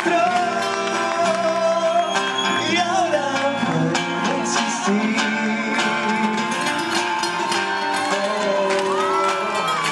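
Live rock ballad: male voices singing long held notes into microphones, over a band with acoustic guitar.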